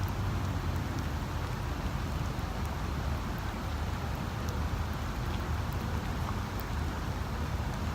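Steady rain falling, with scattered small ticks of drops over a low, steady rumble.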